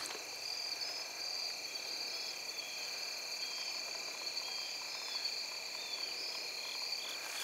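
Insect chorus: several steady high-pitched trills running on together, with short chirping notes repeating over them about once a second.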